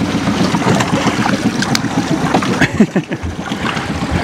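A boat's outboard motor running steadily, with wind noise on the microphone.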